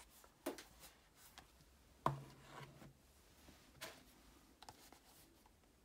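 Cardboard product boxes handled on a table: light rubbing and taps, with a thump about two seconds in as a box is set down, and another knock near four seconds.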